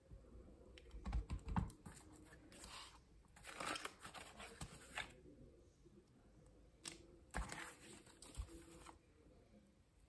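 Paper and card being handled on a craft mat: rustling and sliding, with dull knocks as a clear acrylic stamp block is set down and pressed onto the card, the loudest knocks about a second in.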